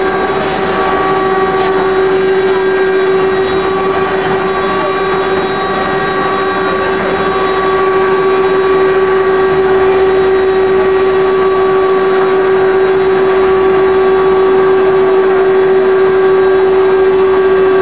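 Eight-head rotary-axis CNC router carving wooden legs: its spindles run with a steady whine over the rough noise of the bits cutting wood, holding even throughout.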